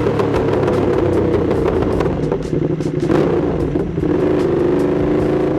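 Ducati Streetfighter V2's V-twin engine running through an Austin Racing exhaust under way, at fairly steady revs that ease off briefly about three seconds in before picking up again.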